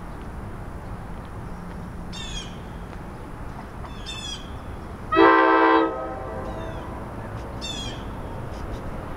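A train horn gives one short blast about five seconds in, several notes sounding together, over a low steady background rumble. A bird repeats a short, high, descending chirp every couple of seconds.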